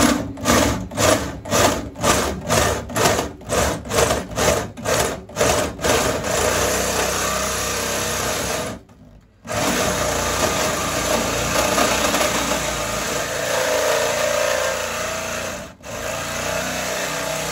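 Handheld electric drill boring a hole in the top panel of a slot machine cabinet. It starts in short pulses, about two or three a second, then runs steadily, stopping briefly twice.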